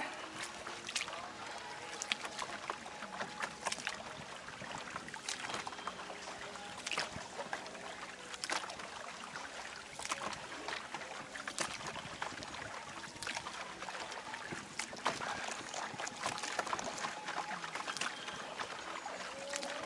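A boatman paddling a woven bamboo coracle, with short splashes and knocks of the paddle every second or so over a steady wash of water.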